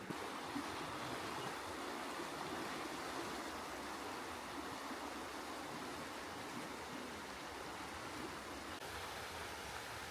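Water of a stream flowing over rocks: a steady, even rush.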